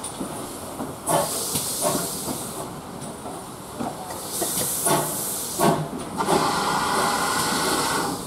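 GWR 64XX-class 0-6-0 pannier tank steam locomotive moving off slowly, with loud steam hissing in three long spells a second or two apart and a few light knocks in between.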